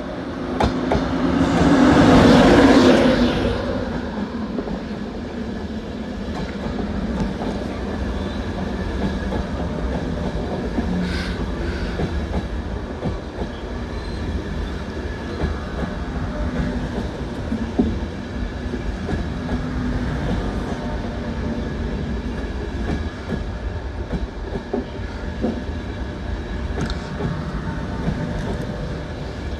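InterCity 225 passenger train passing close by at low speed, led by its Mark 4 driving van trailer. A loud rush as the cab end goes by about two seconds in is followed by the steady rumble and clickety-clack of the Mark 4 coaches rolling past.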